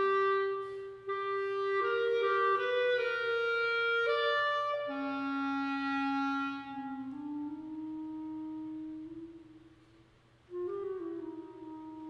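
Unaccompanied clarinet playing a slow melody of long held notes. About halfway through, the tone turns softer and purer and fades almost away, then after a brief pause a quiet new phrase begins near the end.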